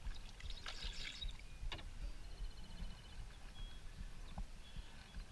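Water splashing and sloshing at a kayak as a large carp on a bow-fishing line struggles beside the boat, over a low rumble. A single sharp knock comes a little under two seconds in.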